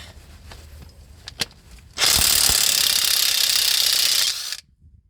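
Impact wrench hammering for about two and a half seconds on a flywheel bolt, loosening it, then cutting off suddenly; a few light clicks come before it.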